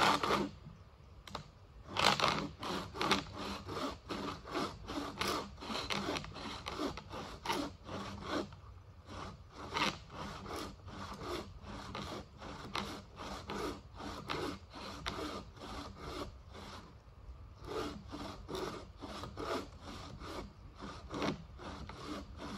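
30-inch Bahco Ergo bow saw with a dry-wood blade cutting through a fatwood stump, in regular push-pull strokes of about two a second. There are short pauses about a third and three quarters of the way through.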